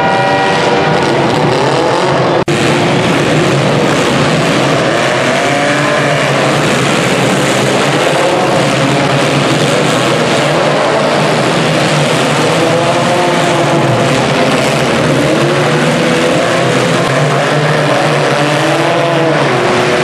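Many stock-mini demolition derby car engines revving and running at once, a loud, continuous din whose pitch keeps rising and falling as the drivers rev. It breaks off for an instant about two and a half seconds in.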